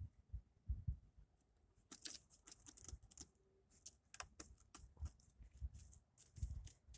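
Faint, irregular clicking and scratching, like a ferret's claws pattering about, with a few soft low thumps.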